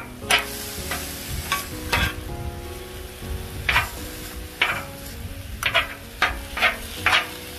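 Metal spatula and bench-scraper chopper striking and scraping the steel top of a gas Blackstone griddle as sliced roast beef is chopped: about ten sharp, irregular clacks over a steady frying sizzle.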